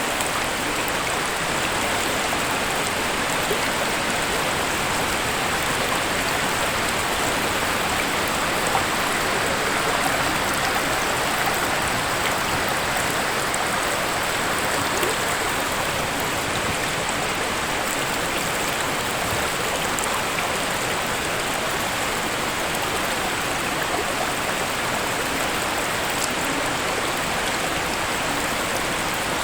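Waterfall: a steady rush of falling water that does not change.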